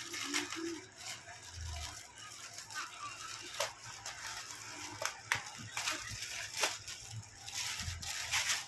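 A parcel's packaging being handled and opened: scattered sharp clicks and rustling noise.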